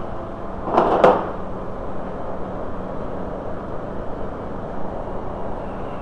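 A tool knocking the two small plastic retaining pins out of a VW New Beetle door lock actuator: a short cluster of knocks and rattle about a second in, then a steady low hum in the background.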